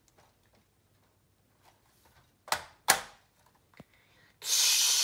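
Two sharp clicks of LEGO plastic pieces being handled and pressed onto a toy airplane, a little more than halfway through, then a loud breathy rush of noise starting near the end.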